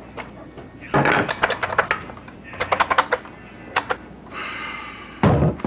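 Nail gun firing in quick bursts of sharp clicks, with a short hiss of air and a heavier thump near the end.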